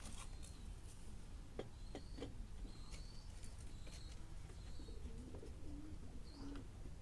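A pigeon cooing in short low calls, mostly in the second half, with small birds chirping. A few light clicks of hand tools come about one and a half to two and a half seconds in.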